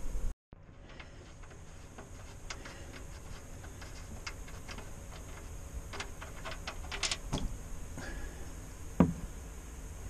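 Light irregular clicking and ticking as the engine's oil drain plug is worked loose, then one louder knock about nine seconds in, just as the old oil starts draining into the drain pan.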